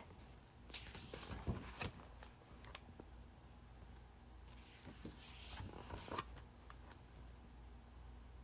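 Faint rustling and soft taps of a picture book's paper pages being turned by hand, twice: once about a second in and again around five to six seconds in.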